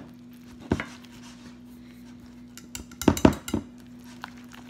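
Kitchenware being handled: one sharp knock a little under a second in, then a quick run of three or four clinks and knocks of a ceramic bowl and utensils about three seconds in.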